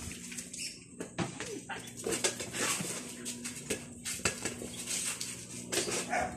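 A dog making small whining sounds while it plays, among scattered sharp clicks.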